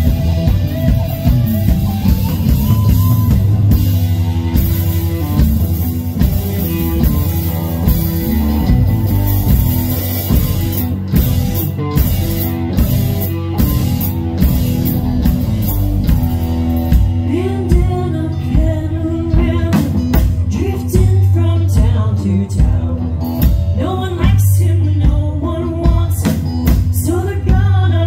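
Live rock band playing loudly: electric guitars, bass guitar and drum kit keeping a steady beat, with a singer's voice over the band, mostly in the second half.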